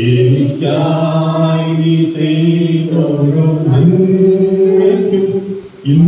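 Unaccompanied hymn singing in a slow, chant-like style, with long held notes and a brief pause near the end.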